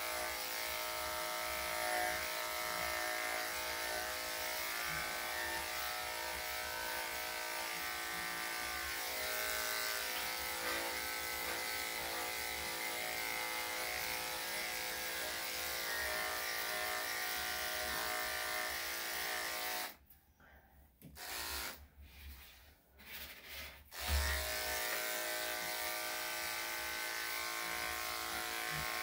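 Electric dog grooming clippers with a #5 blade running with a steady hum while clipping a Yorkshire Terrier's coat. They are switched off about two-thirds of the way through and back on some four seconds later.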